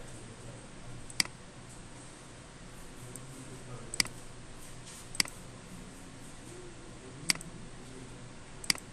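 Computer mouse clicking: five sharp single clicks, one to two seconds apart, over a faint steady low hum.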